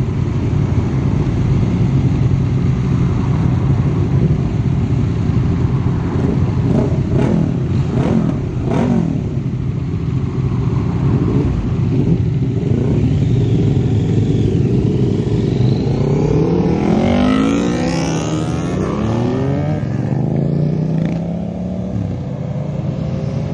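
A group of motorcycle engines idling together, with a few short throttle blips about a third of the way in. Past the halfway mark the engines rev up in rising sweeps as the bikes pull away one after another, then the revving fades.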